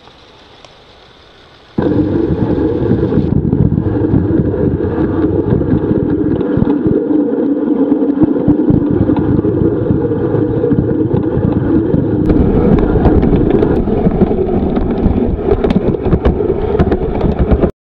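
Loud, dense rumbling noise on the camera microphone, typical of wind buffeting or handling noise. It starts abruptly about two seconds in and cuts off suddenly just before the end, over faint outdoor ambience.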